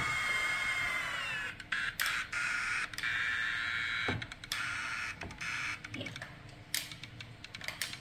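Small electric motor of a Terra remote-control toy shark whining steadily as the shark swims, its pitch dipping slightly about a second in. Scattered sharp clicks come through it, and a rapid run of ticks near the end.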